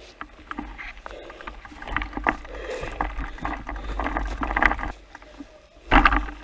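Mountain bike being ridden over a wet, muddy forest trail: tyres rolling over the ground with irregular rattles and knocks from the bike, and a loud clatter about six seconds in.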